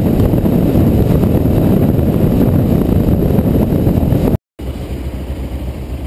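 Wind rush over a bike-mounted microphone mixed with a motorcycle engine running at road speed. About four seconds in it cuts off abruptly and gives way to a quieter motorcycle engine idling.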